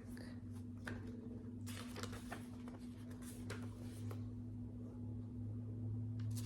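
Pen scratching and paper rustling in three short spells, over a steady low electrical hum.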